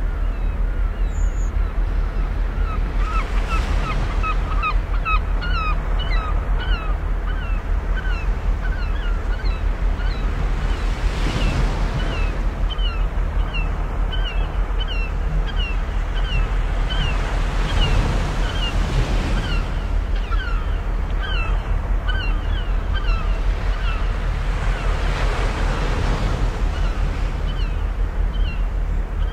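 Fjord waves washing onto the shore, swelling about every seven seconds over a steady low rumble. Birds call in quick, repeated short chirps through most of it.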